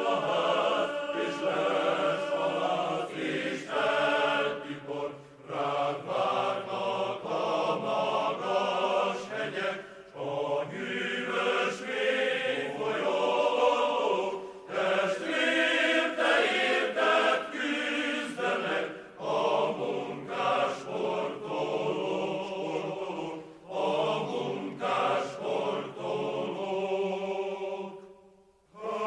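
Background music of a group of voices singing together, which breaks off briefly just before the end.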